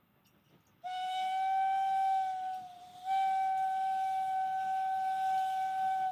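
Steam locomotive whistle blowing one clear, steady note in two blasts: the first about a second and a half long, sagging slightly in pitch as it fades, then a longer blast of about three seconds that cuts off at the end.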